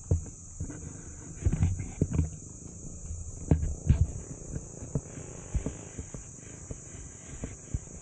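Irregular low thumps and knocks of footsteps and camera handling on a hand-carried 360 camera, loudest in two clusters in the first half, over a steady high drone of insects.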